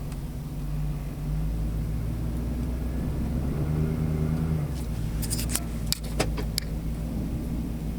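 A cold 6.2-litre V8 engine running, filmed for its cold-engine knock; its note rises briefly near the middle. A quick series of sharp clicks or taps comes about five to six and a half seconds in.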